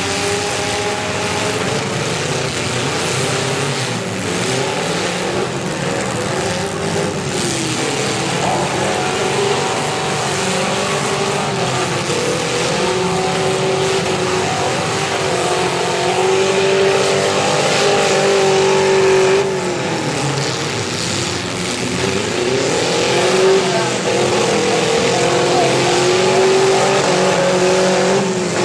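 Engines of several compact demolition derby cars revving hard, their pitch rising and falling as the cars push against each other in the mud. Louder in the second half.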